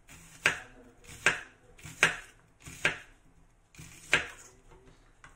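Kitchen knife chopping down onto a plastic cutting board: five separate sharp knocks, about one every 0.8 s, with a slightly longer pause before the last.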